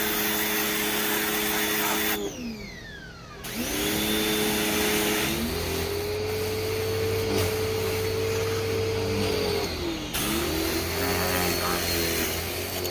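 Westinghouse electric pressure washer's motor running with a steady whine. It winds down and starts back up twice, about 2 and 10 seconds in, settles into a slightly higher pitch with a low hum underneath from about 5 seconds in, and winds down again near the end.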